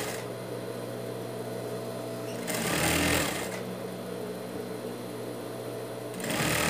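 Industrial sewing machine: its motor hums steadily, and the machine runs in two short louder bursts of stitching, about two and a half seconds in and again near the end.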